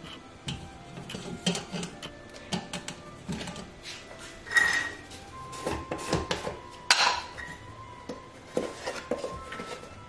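Light metal clinks and knocks of a metal mesh grease filter and kitchen tongs against a stainless steel saucepan as the filter is set into hot water to soak; the sharpest knock comes about seven seconds in.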